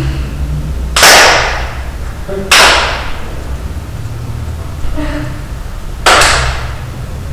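Three sharp, loud cracks, the first two about a second and a half apart and the third some three and a half seconds later, each ringing out briefly in a large room, over a steady low hum.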